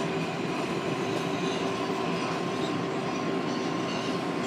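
An R188 subway car running through the tunnel, heard from inside the car: a steady rumble of wheels on the rails, with a faint steady whine through it.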